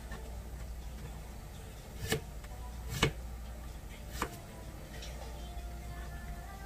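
Kitchen knife cutting through a vegetable onto a plastic cutting board: three separate chops, about a second apart, starting about two seconds in.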